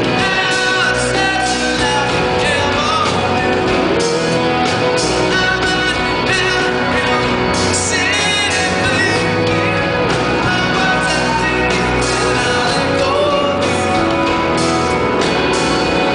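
Live rock band playing: a male voice singing over strummed acoustic guitar, with bass and drums underneath.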